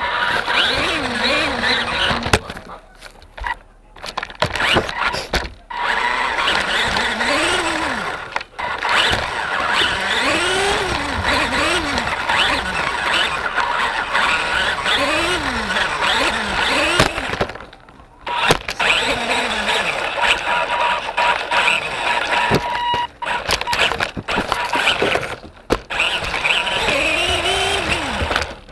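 Electric motor and gears of a 1/24 scale mini RC monster truck, heard from a camera strapped to its roof, whining up and down in pitch as it speeds up and slows, with its tyres running over a wooden floor and occasional knocks. It goes quiet briefly a few times when the truck stops.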